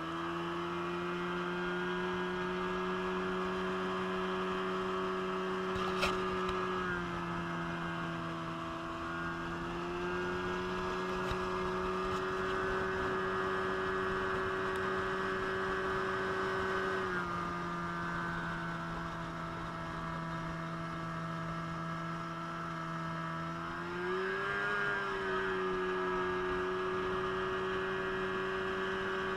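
Small outboard motor on an aluminium jon boat, running steadily under way with a hum. Its pitch shifts slightly a few times as the throttle or speed is changed, and there is a single sharp click about six seconds in.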